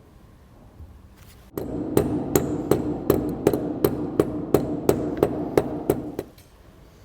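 A hammer striking metal in a steady run of about fourteen blows, roughly three a second, with the metal ringing between them and stopping suddenly: a new ABS sensor ring being driven onto a wheel hub.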